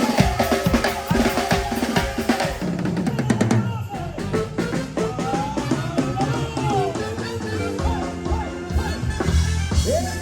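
Band music: a busy drum fill of snare and bass drum for about the first three and a half seconds, then a melody over bass and drums.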